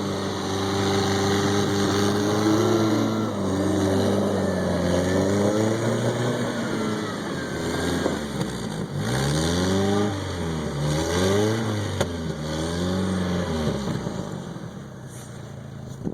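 1995 Jeep Wrangler's engine running, steady at first, then revved up and down repeatedly, with about five quick rises and falls in the second half, as the Jeep tries to work its way out of a snowbank.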